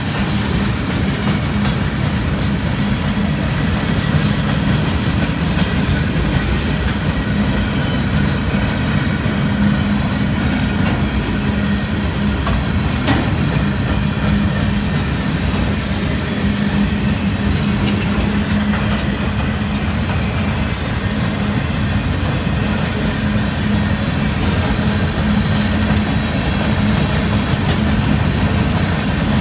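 Freight cars of a CSX mixed freight train rolling past on steel wheels, clacking over the rail joints with a steady rumble. A few sharper clicks stand out from time to time.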